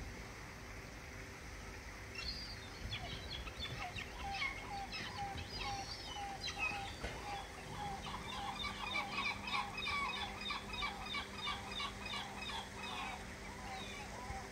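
A flock of waterfowl calling on the water: many short, overlapping calls that start about two seconds in and are busiest in the second half.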